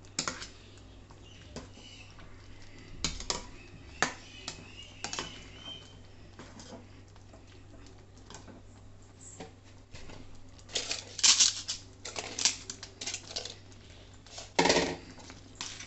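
A ladle stirring a thick dal and potato kootu in a steel kadai, with scattered clicks and scrapes against the pan. Later, two short bursts of crisp crackling as fried appalams (papads) are laid into the pan.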